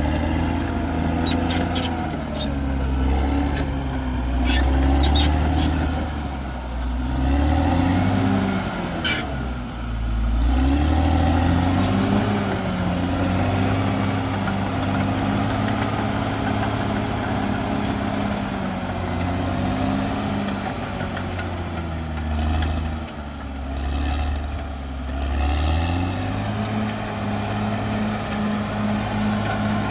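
Caterpillar D6R XL bulldozer's diesel engine working, its note rising and falling again and again as the load changes, with high squeaks and a run of clicks in the first few seconds.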